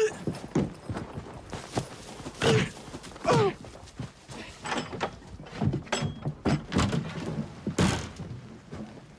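A series of irregular knocks and thuds, with a few short falling tones among them in the first half.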